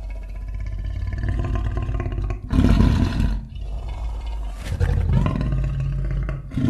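Deep, rumbling monster roar sound effect, swelling louder in surges about two and a half seconds in and again near the end.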